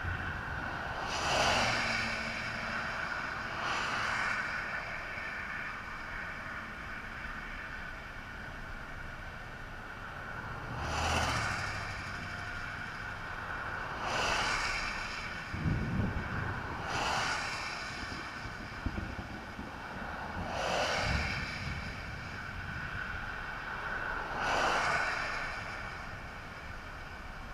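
Cars passing one after another on an interstate highway, each a rising and falling whoosh of road noise, seven passes in all, over a steady low rumble.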